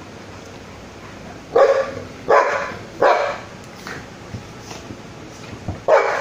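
Dogs play-barking: three quick barks in a row about a second and a half in, then another bark near the end.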